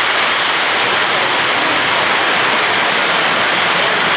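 A model freight train's metal wheels rolling past close by on metal track: a steady rushing noise with no separate clicks.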